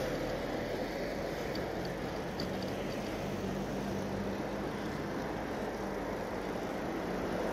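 Steady city street traffic noise heard from a moving bicycle, with a faint engine hum from a passing vehicle in the middle.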